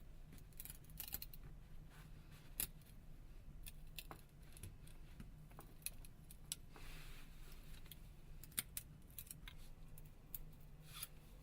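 Faint scattered clicks and a short scrape of a small pry tool working a flex cable free inside a smartphone, over a steady low hum.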